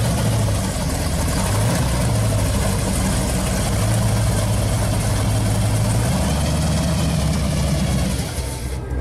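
Supercharged V8 of a 1970 Chevrolet Camaro Z28 pro street car idling steadily.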